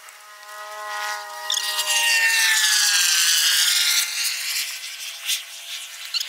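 Engine of a passing vehicle: a steady hum whose pitch falls slowly as it goes by, swelling loudest from about two to four seconds in, then fading.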